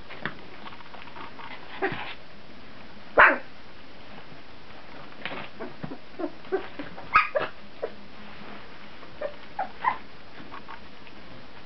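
Two-week-old Brittany puppies giving short, squeaky yips and tiny barks, scattered through, the loudest about three seconds in and a quick run of them a few seconds later.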